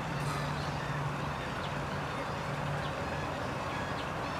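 A steady low mechanical drone that holds one pitch under a constant background noise, with a few faint ticks.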